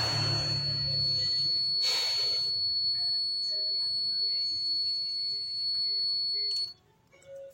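Angle grinder running, a steady high-pitched whine over its motor hum, with a short surge of hiss about two seconds in; it cuts off suddenly near the end.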